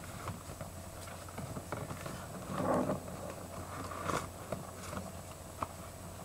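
Pokémon trading cards being sorted through by hand: faint rustling and light clicks over a steady background hum, with a brief louder rustle a little before three seconds in.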